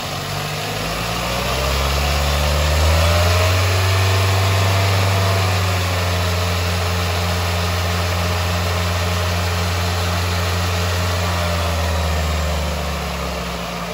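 Toyota bB car engine revved up from idle over about two seconds, held steady at around 2000 rpm, then easing back down near the end. The engine is raised with the AC running to check the compressor's pressures, and the low side drops only to about 16–17 psi.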